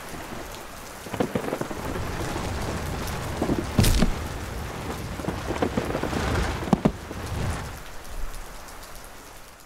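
Rainstorm: steady heavy rain with low rolling thunder and a sharp thunderclap about four seconds in, dying away near the end.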